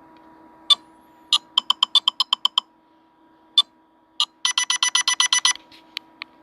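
Nothing Phone (1) ringtone playing: short electronic beeps and blips. A run of quick beeps lasts about a second, two single blips follow, then a faster run of about ten beeps, with a faint steady hum underneath.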